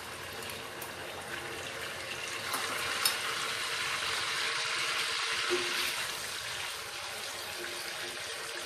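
Tofu cubes sizzling as they fry in hot oil in a wok. The sizzle swells a couple of seconds in and eases off toward the end.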